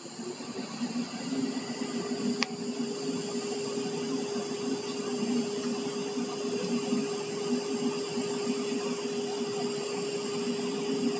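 TIG welding arc burning steadily, a continuous hiss with a steady hum underneath.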